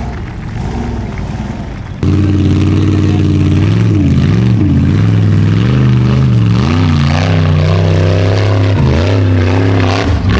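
Formula Offroad buggy's engine under heavy throttle on a steep dirt climb, its pitch swinging up and down as it revs and bogs. It is quieter for the first couple of seconds, comes in suddenly loud about two seconds in, and falls away near the end.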